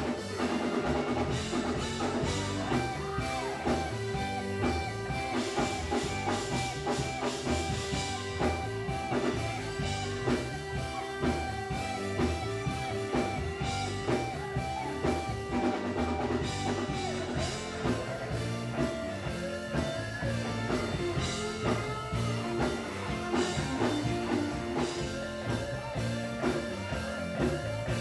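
Live gospel band playing an instrumental groove: electric guitars over bass and a drum kit, with a steady beat.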